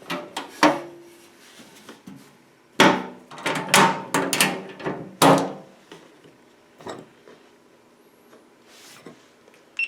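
Knocks and clatter of a metal toolbox and its tools being handled, some knocks leaving a short ringing. There are a few sharp knocks in the first second, then a louder run of clattering from about three to five and a half seconds in.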